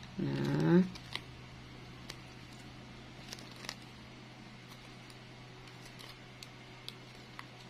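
A short rising vocal call in the first second, then faint scattered ticks and crinkles of a thin plastic shopping bag strip being stretched and twisted by hand, over a steady low hum.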